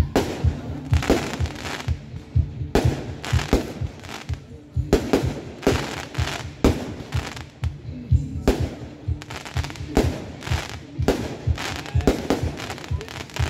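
Fireworks display: aerial shells launching and bursting in a rapid barrage of sharp bangs and cracks, with music playing underneath.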